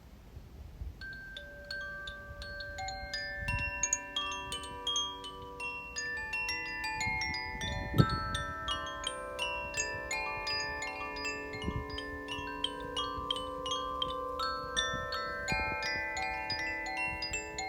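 Koshi and Zaphir wind chimes ringing: tuned rods struck by the clapper in a quick, irregular patter, the notes sparse at first and then overlapping into a dense, shimmering cluster of sustained tones. A few soft low thumps sound beneath the ringing, the strongest about eight seconds in.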